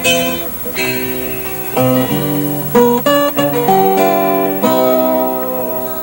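Background music: a guitar plucking a melody of single notes and chords.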